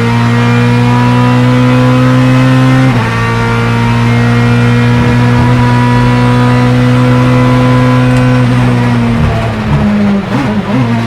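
Ferrari F430 GT2 race car's naturally aspirated 4.0-litre V8 at full throttle, its pitch climbing steadily through a gear, a quick upshift of the sequential gearbox about three seconds in, then climbing again. About nine seconds in the revs fall and turn uneven as the driver lifts and brakes with downshifts.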